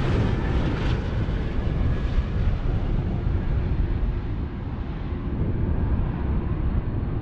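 Jet airliner engine noise: a steady rumble that grows duller and slowly fades as the high end dies away, like a jet moving off into the distance.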